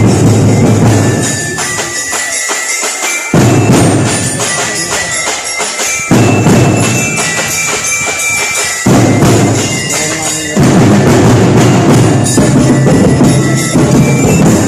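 Music with a drum beat. The bass and kick drop out twice for a second or two and then come back abruptly.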